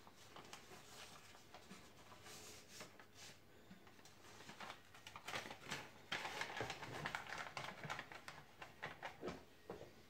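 Light rustling, scraping and small plastic clicks as a hand works in the filter basket of a drip coffee maker, busiest and loudest in the second half.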